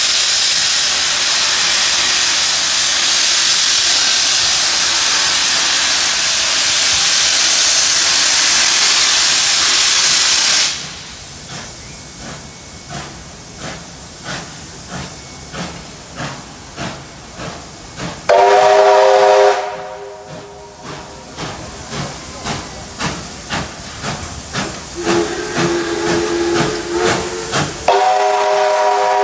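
Steam locomotive 3801 venting a loud, steady hiss of steam that stops abruptly about ten seconds in. Its exhaust then beats softly about twice a second as it gets under way, and its steam whistle sounds a chord of several notes: a short blast past halfway, a lower note a few seconds later, and another chord blast near the end.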